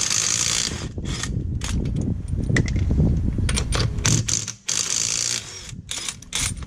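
Impact wrench taking lug nuts off a car wheel in short bursts, with sharp metallic clicks and clatter between them.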